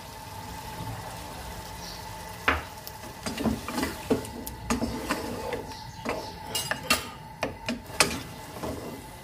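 Wooden spoon stirring meat, chopped tomatoes and green chillies in oil in a wok, knocking and scraping against the pan irregularly from a couple of seconds in, over a light sizzle.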